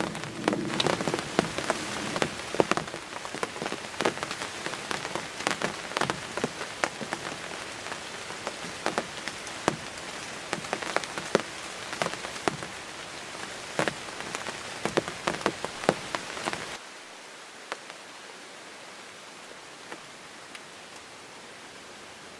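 Raindrops tapping irregularly on the ground blind over a steady patter of drizzle. About seventeen seconds in the tapping stops abruptly, leaving only a faint steady hiss.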